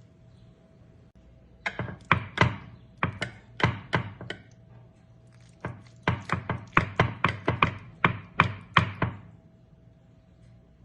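A run of sharp, rhythmic knocks on a hard surface, about four a second, in two bursts separated by a short pause.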